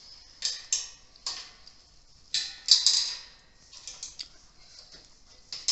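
Ratcheting screwdriver clicking in short, irregular runs as nuts are tightened down on the antenna's bracket bolts, loudest about two and a half seconds in.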